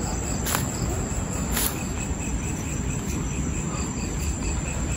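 Crickets chirping in a steady, evenly spaced pulse, over a low rustling background, with two short sharp clicks in the first couple of seconds.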